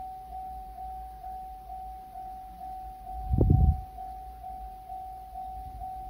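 Japanese railway level-crossing alarm: an electronic bell ringing one steady tone about twice a second, warning of an approaching train while the barrier arms lower. A brief loud low rumble cuts in about three and a half seconds in.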